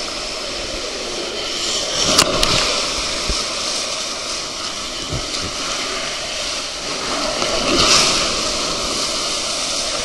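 Water rushing and splashing down a fibreglass water slide around a sliding rider, heard up close. It swells with bursts of spray about two seconds in and again around eight seconds.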